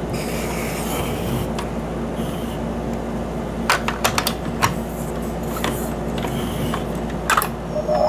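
Crazy Legs Learning Bug plastic toy being handled, with a steady low mechanical whir and scattered sharp clicks and taps of its plastic parts, about five in all.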